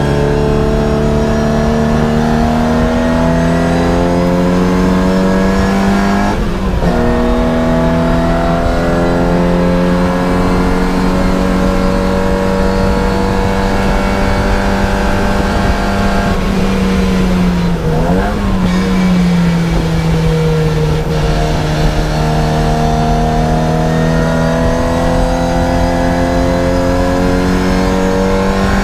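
Race car engine heard from inside the cockpit under hard acceleration, its pitch climbing steadily through the gears. It drops at an upshift about six and a half seconds in, climbs for a long stretch, dips and recovers briefly around eighteen seconds in, and shifts again near the end.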